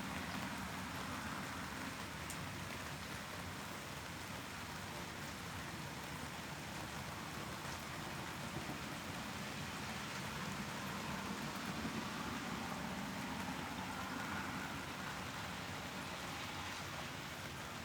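Steady rain: an even hiss with occasional faint drop ticks.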